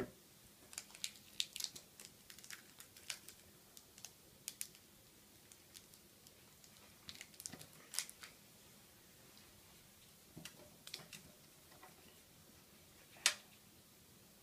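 Foil wrapper of a block of Fimo Effect polymer clay crinkling as hands pull it open, in scattered short crackles and clicks, with a sharper snap near the end.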